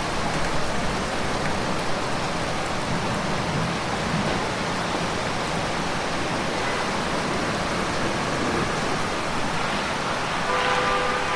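Steady rain falling, an even dense hiss. Near the end a brief pitched sound rises above the rain.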